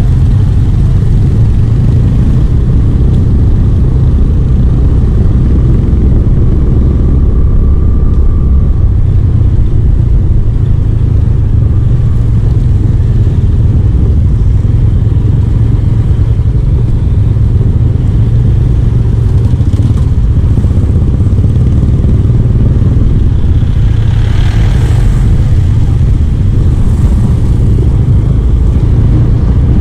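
A vehicle moving along a rough, dusty road: a steady, loud low rumble of engine and road noise, with a brief higher-pitched sound a little before the end.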